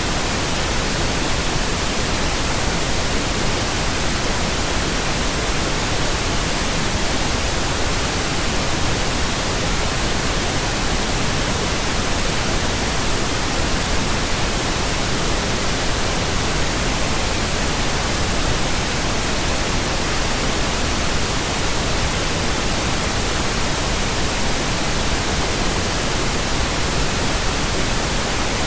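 Steady pink noise: an even, unchanging hiss spread across all pitches, with no breaks or events.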